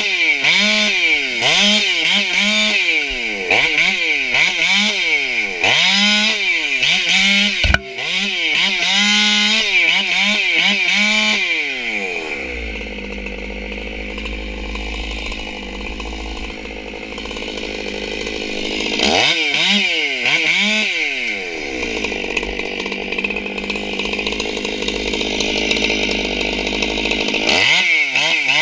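Stihl MS 461 two-stroke chainsaw, modified with a reshaped combustion chamber and flow work, revving up and dropping back over and over as it cuts off limbs. It then settles to a steady idle, revs briefly a couple of times, and near the end revs up again as the bar goes into the trunk.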